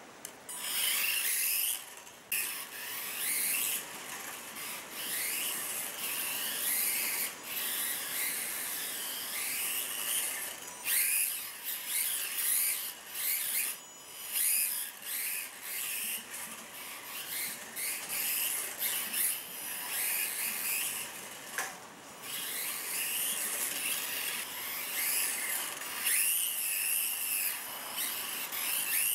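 Micro 1/24-scale electric RC rally car driving on concrete: its small electric motor and gears whine, rising and falling in pitch as the throttle is worked, with tyre scrub. The sound breaks off briefly a few times.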